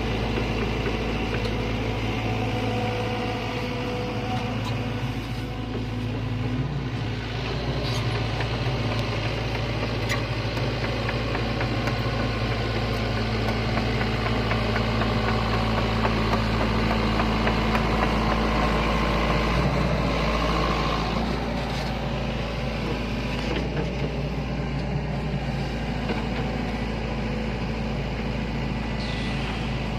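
Sany hydraulic excavator's diesel engine running steadily under working load, its note shifting and dropping a little about two-thirds of the way in.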